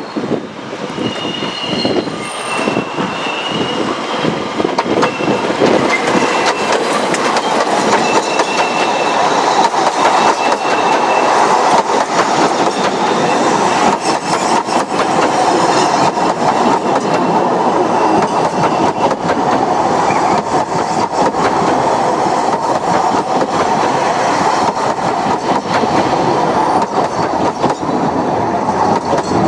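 Narrow-gauge steam train hauled by the double Fairlie locomotive Merddin Emrys running along the line, its rumble and wheel clatter growing louder over the first ten seconds or so and then holding steady.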